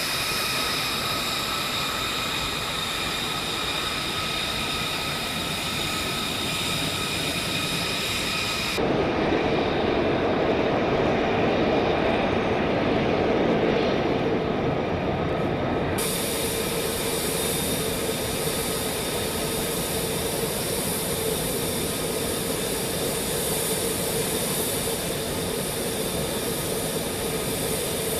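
F-35A fighter jet's engine running on the ground with a steady high whine over a rushing noise. About a third of the way in, the sound cuts abruptly to a duller, lower rush without the whine for about seven seconds, then cuts back to the whining engine.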